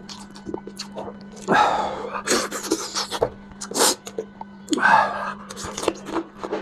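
A person eating spicy braised lamb head noisily: several loud breathy sucking and slurping bursts with wet smacking clicks between them.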